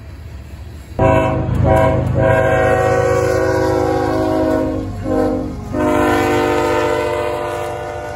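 A CSX freight locomotive's multi-chime air horn sounding as the train passes, over the low rumble of the train. The horn comes in suddenly about a second in, with short breaks, one long blast, a short one and then a long blast that fades out near the end.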